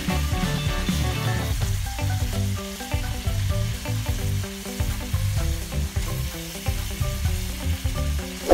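Chicken pieces and onions sizzling in hot fat in an enameled cast-iron pot, stirred and turned with a wooden spatula.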